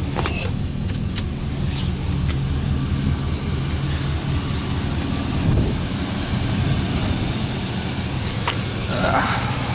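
Chevrolet Silverado pickup's engine idling steadily, with a couple of faint clicks and a short rustle near the end.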